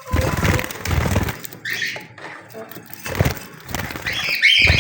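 Budgerigars chirping: a short call near two seconds in and a quick cluster of chirps near the end, between bursts of dull noise.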